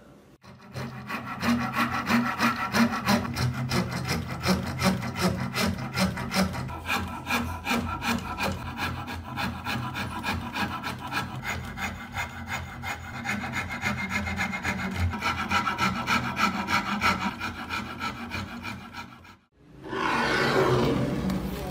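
A coarse wood rasp is worked in steady back-and-forth strokes across a wooden hammer-handle blank held in a vise, shaping the new handle. Near the end the rasping stops and a short rushing noise swells and fades.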